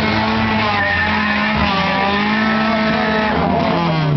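Engines of several four-cylinder demolition derby cars running hard at once, their pitches rising and falling as they rev.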